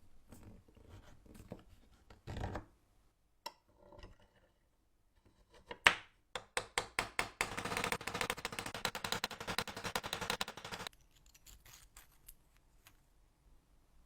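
Mechanical clicking from the restored antique bread cutter being worked: scattered knocks, one sharp click, a few separate strokes, then a fast steady run of clicks for about three seconds that stops suddenly, followed by a few faint knocks.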